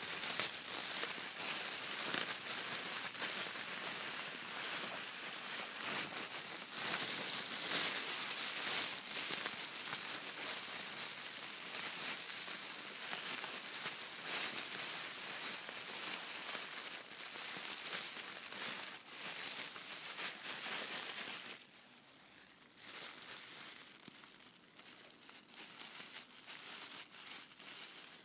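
Packaging crinkled and scrunched by hand: dense, crackly crinkling that goes on for about twenty seconds, then drops to quieter, sparser crinkles.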